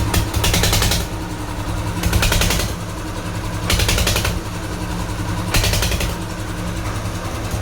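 Old diesel engine running, with a steady low drone and four surges of hiss spaced about a second and a half apart.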